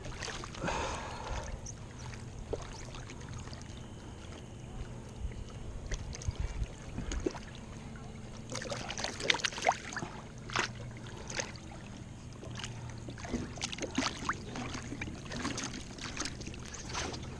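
Water sloshing and splashing around a stand-up paddleboard as a hand and the board's nose dip into the water, with a run of small irregular splashes and drips, busiest in the second half.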